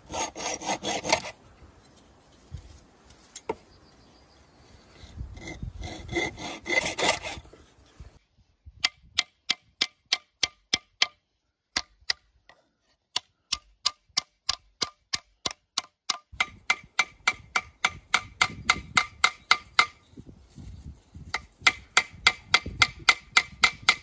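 Hacksaw strokes rasping through a thin metal pin rod, in two short spells. From about eight seconds in comes a run of light, ringing metal hammer taps, about three a second with a brief pause: peening the rivet pins of a knife handle.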